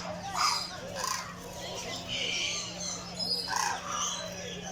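Many birds chirping and calling at once in short, overlapping calls, over a steady low hum.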